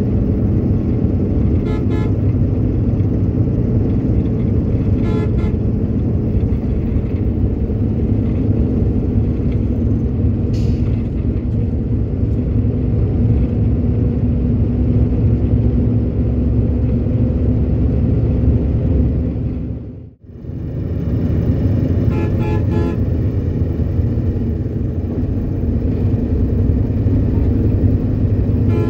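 Steady rumble of an RM-2 air-conditioned coach driving on the road, engine and road noise together, with short horn toots several times. The sound dips out for a moment about two-thirds of the way through.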